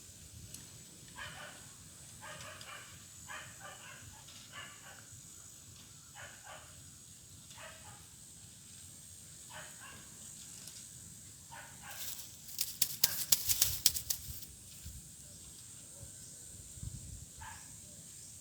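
Sleeping Nubian goat kids snoring in short, soft snores that come every second or so. A burst of loud, sharp clicks lasts about two seconds, about two-thirds of the way in.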